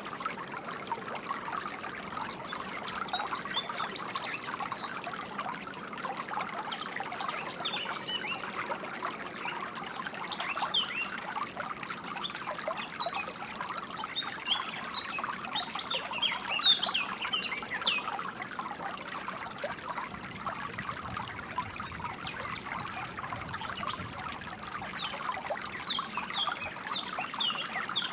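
Small stream of water trickling and splashing, with songbirds chirping here and there over it, the chirps busiest near the end.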